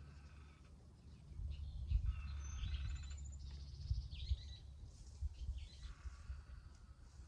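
Birds chirping and calling on and off, over a low, uneven rumble.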